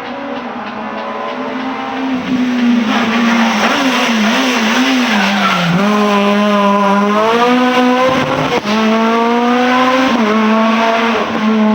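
Rally car engine at high revs, getting louder about two seconds in, its pitch wavering as the throttle is worked, then climbing with a brief break for a gear change, with tyres squealing.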